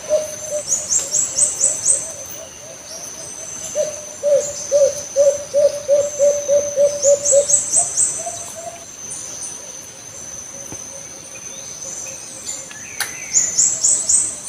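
Alimukon dove calling: a run of short, low, hooting notes that comes in strongly about four seconds in, quickens and stops at about seven and a half seconds. A steady high insect trill and quick high chirps go on behind it, and there is a sharp click near the end.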